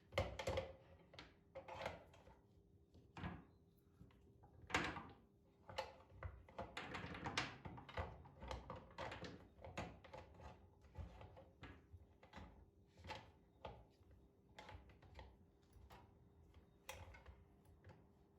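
Household objects being handled and set down: a string of irregular knocks and thuds, busier from about six to ten seconds in, over a faint steady hum.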